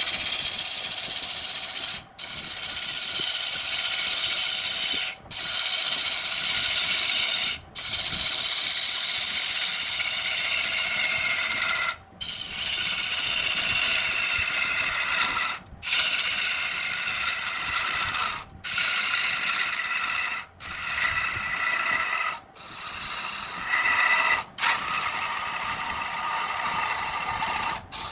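Tool cutting into a burl log spinning on a wood lathe: a rapid, pitched rattling chatter. It drops out briefly every two to four seconds.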